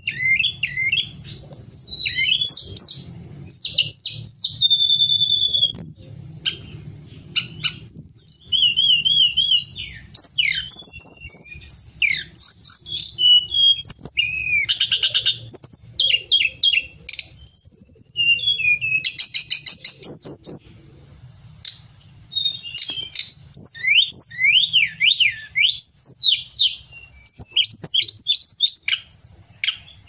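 Hill blue flycatcher (tledekan gunung) singing energetically: a long, varied run of clear whistled phrases, rising and falling sweeps and rapid trills, broken by short pauses.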